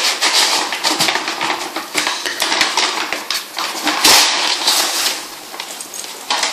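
Packing tape and brown paper being torn off a cardboard parcel box: a run of crackling rips and scrapes, with the loudest rip about four seconds in.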